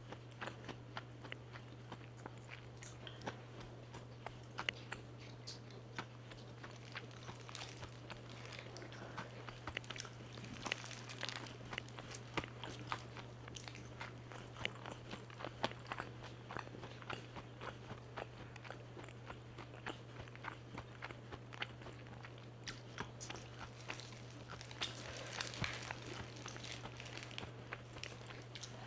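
Close-miked chewing and biting of crispy fried chicken: many irregular sharp crunches of the breading, over a steady low hum.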